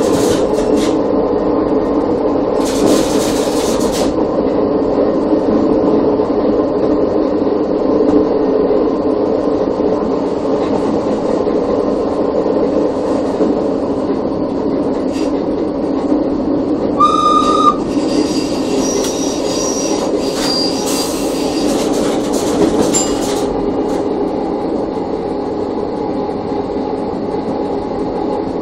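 Electric railcar ABe 4/4 641 running steadily, heard from its driver's cab, with a constant rumble of wheels on rail. About two-thirds of the way in comes one short horn blast, and high squealing tones follow soon after.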